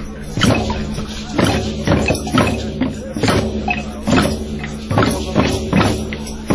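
Djembes played by hand in a drum circle, the strongest strokes landing about twice a second in a steady rhythm, with maracas shaking along.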